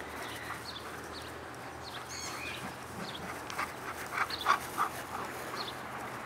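Dogs at play, with a quick run of short, sharp yips about four seconds in.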